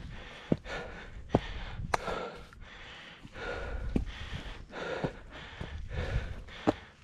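A hiker breathing hard and loud on a steep climb, puffing in and out about once a second. Several sharp thuds of footfalls on the dirt trail come in between, the loudest about two seconds in.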